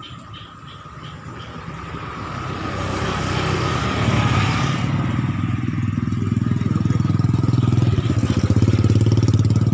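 A motorcycle engine grows louder over about four seconds as it comes close, then keeps running steadily and loudly nearby. Faint quick chirps sound in the first second or so.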